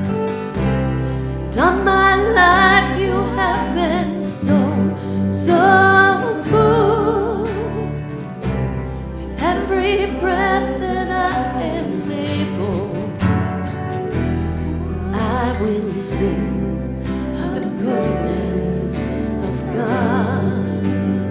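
Live worship music: a slow song with a sung voice over sustained bass notes that change every few seconds.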